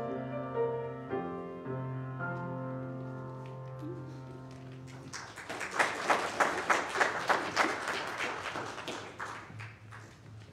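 Final held chords of the choir's keyboard accompaniment, fading slowly, then the congregation applauding from about halfway through, the clapping strongest at first and dying away near the end.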